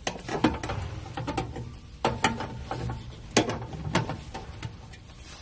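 Irregular clicks and rattles of small plastic and metal parts being handled while an infrared sensor's cable is reconnected inside a vending machine.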